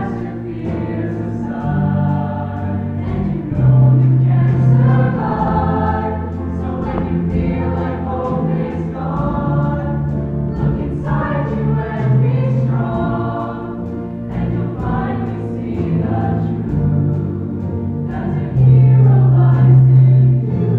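A mixed choir of young voices singing together, with sustained low notes underneath that swell near the end.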